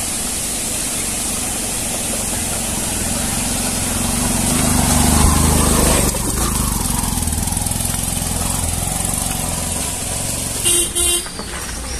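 Motorcycle engine running at low speed, with wind noise over the microphone. A short double horn honk near the end.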